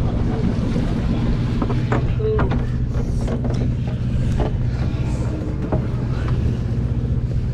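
Steady low hum of a sportfishing boat's diesel engine, with wind and sea noise and a few short knocks.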